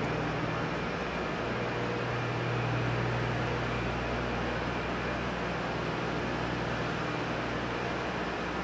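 Steady roar of power plant machinery running, with a constant low hum under it.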